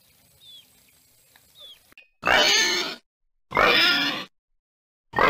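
A pig squealing loudly three times, each call under a second long, with short silent gaps between them. Before the squeals, faint high bird chirps.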